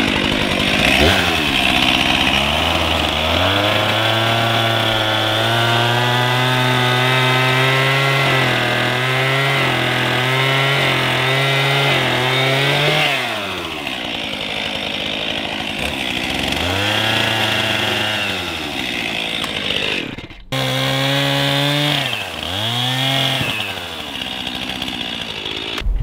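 Gas chainsaw revving up into a long cut through timber and holding high speed for about ten seconds, then dropping back toward idle. It then revs up again in shorter bursts for further cuts, with a brief break about twenty seconds in.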